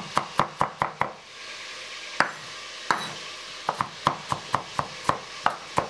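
Chef's knife chopping onion on a wooden cutting board: a quick run of sharp knocks, about five a second, then a pause broken by two single knocks, then another quick run near the end.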